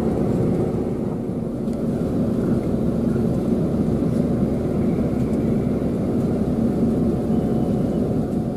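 Steady low drone of a coach's engine and running noise, heard from inside the passenger cabin.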